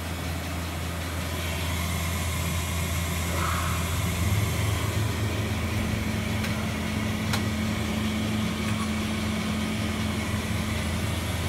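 Steady low machine hum from a powered-up Mazak Integrex 200-II SY CNC mill-turn lathe, with a second, higher steady tone joining about four seconds in as it gets a little louder. A single sharp click comes a little past the middle.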